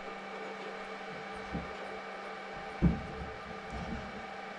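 Handling knocks from refitting an RC boat's freshly greased drive shaft and setting parts down on a workbench: a few light knocks and one sharper thump about three seconds in, over a steady hum.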